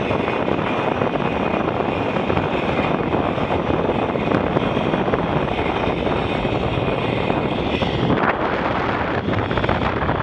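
Steady rush of wind buffeting a helmet-mounted action camera's microphone, mixed with the zip line trolley running along the steel cable.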